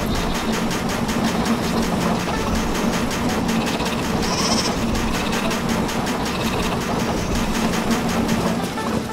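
Cartoon machine sound effect for a sheep-shearing machine at work: a rapid, even mechanical clatter over a steady hum.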